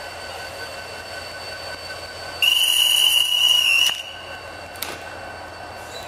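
A railway guard's whistle blown once: one steady shrill note lasting about a second and a half, the signal for the train to depart. Beneath it is a steady high whine from the train standing at the platform, and a short click follows.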